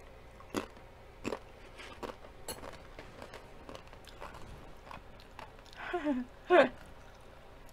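A crunchy purple sweet potato chip being bitten and chewed close to the microphone: sharp crunches, loudest in the first two or three seconds and growing fainter as it is chewed down. A short voice sound falling in pitch comes about six seconds in.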